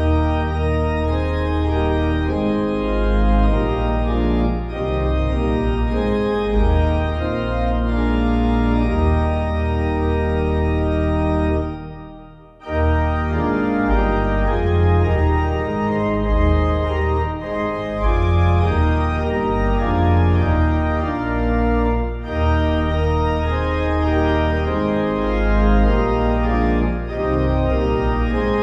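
Organ music: sustained chords over a deep pedal bass, fading away about twelve seconds in and coming straight back in.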